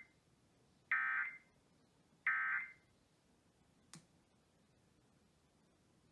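Emergency Alert System end-of-message data bursts: the tail of one short, buzzy digital squawk, then two more about a second and a half apart, marking the end of the alert. A single sharp click follows about four seconds in.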